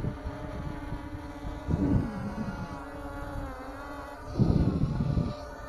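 Hexacopter's six motors and propellers humming steadily in a hover and gentle climb, their pitch shifting a little. Two louder rumbles of wind on the microphone come about two seconds in and again near the end.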